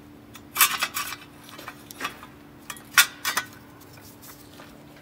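Metal parts clinking and clanking as the new pad retaining bracket is handled and set in over the dust shield on an air disc brake caliper, in two short bursts about half a second in and about three seconds in, over a faint steady hum.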